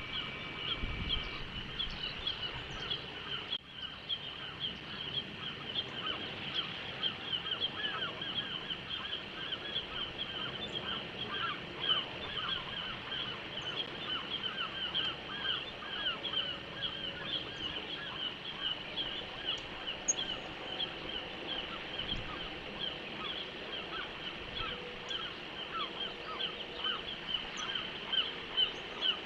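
Birds calling without a break, a dense run of short, high, repeated notes.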